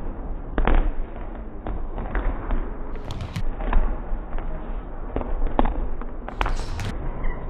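Several basketballs bouncing on a hard sports-hall floor, sharp echoing bounces at irregular intervals.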